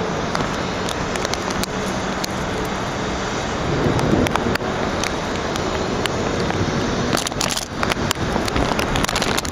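Thunderstorm noise: a steady rush of rain and wind with many sharp crackling clicks of drops. A brief louder swell comes about four seconds in.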